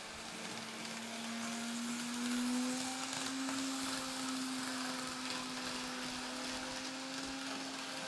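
Kato N-scale AC4400CW model locomotive's small electric motor whining steadily as it pulls a freight train, rising a little in pitch and loudness about two seconds in, over a light hiss.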